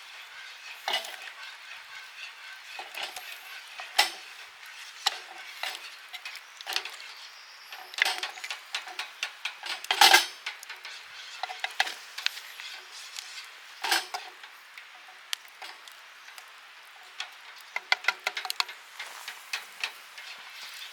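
Cooking utensils clinking and scraping against metal cookware: irregular light clicks and clanks, the loudest about halfway through.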